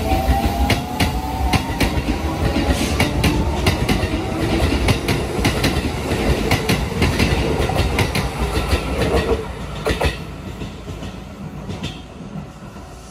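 Shin-Keisei Line electric train pulling out and picking up speed, its traction motors giving a rising whine over a rumble while the wheels click sharply and repeatedly over rail joints. The sound fades after about ten seconds as the train clears the station.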